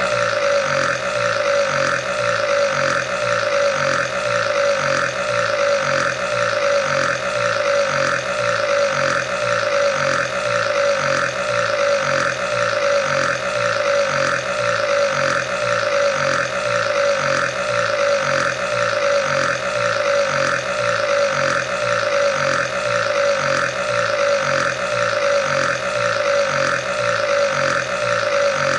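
One long, unbroken burp with a low, rough pulsing about twice a second.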